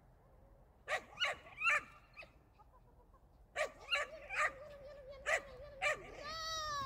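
Puppy barking excitedly in two bursts of short, high yaps. A thin held whine runs between the later barks, and a long, slightly falling whine comes near the end.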